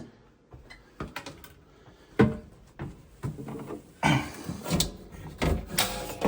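Handling clatter: scattered clicks and knocks, a sharper thunk about two seconds in, then denser rustling and clunking from about four seconds in.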